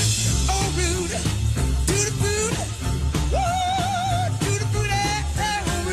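Upbeat rock and roll music with a steady bass beat and a bending lead melody line; one wavering note is held for about a second midway through.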